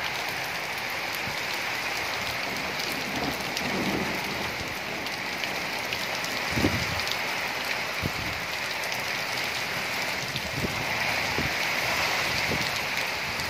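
Heavy rain falling steadily on a flat concrete rooftop and the surrounding trees in a windstorm, an even hiss. A few brief low thumps of wind hit the microphone, the strongest about six and a half seconds in.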